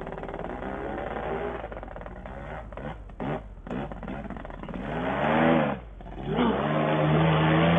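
Paramotor engine and propeller revving up and down on the throttle at the start of a foot launch. The pitch rises and falls several times, dips briefly about six seconds in, then climbs to a steady high pitch near the end.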